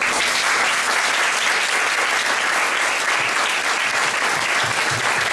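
Small audience applauding, starting all at once and holding steady.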